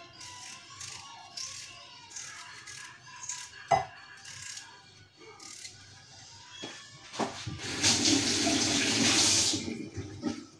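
Kitchen tap running into the sink for about two seconds near the end, after a couple of light knocks earlier on.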